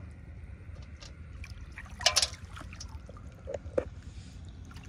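Water splashing and sloshing as someone wades and gropes by hand in shallow field water. One loud splash comes about two seconds in and smaller ones follow later, over a steady low rumble.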